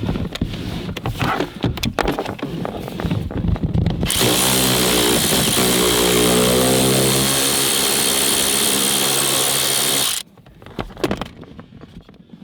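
Clicking and rattling for a few seconds, then a cordless power tool spinning steadily for about six seconds, its pitch rising slightly as it comes up to speed before it cuts off. It is backing out the bolt that joins the steering column to the steering rack.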